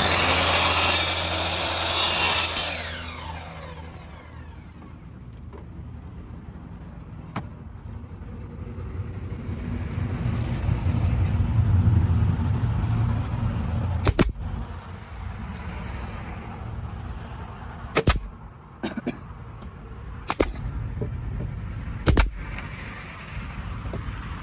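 Angle grinder running loud for about two seconds, then switched off and winding down with a falling whine. A low rumble follows, with a few sharp knocks in the second half.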